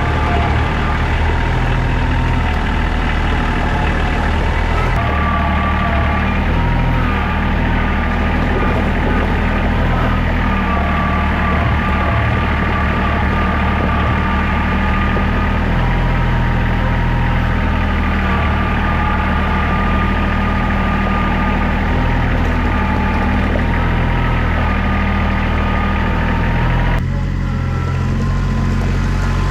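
Kubota L2800 tractor's three-cylinder diesel engine running steadily, with a steady whine above the engine note. The sound shifts abruptly twice, about five seconds in and near the end.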